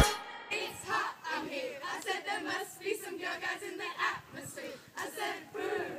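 A group of people's voices, many at once and overlapping.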